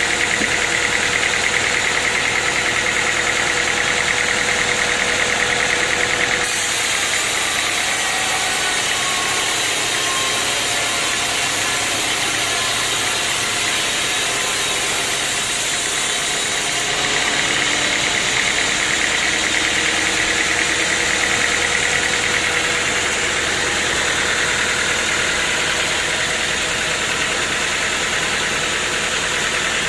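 Sawmill machinery running steadily, an engine-driven saw with a steady whine. The sound changes abruptly about six seconds in and changes back about seventeen seconds in.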